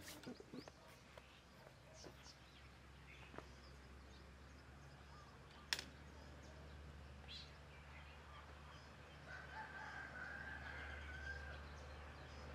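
A rooster crowing faintly, one long wavering call about three-quarters of the way through, over a steady low hum. A single sharp click about halfway through is the loudest sound.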